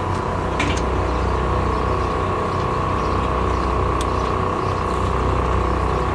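Rollback tow truck's engine idling steadily, with a steady high whine over it and a few light clicks.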